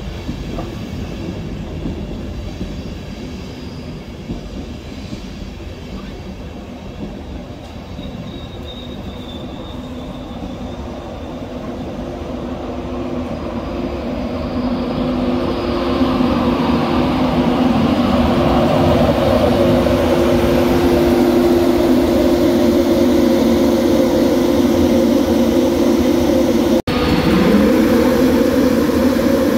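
LNER InterCity 225 electric train rolling slowly past on the platform line, its Mark 4 coaches rumbling by. It grows louder from about halfway as the named end vehicle approaches, bringing a loud steady electric whine of several tones. Near the end a whine rises in pitch as the train picks up speed.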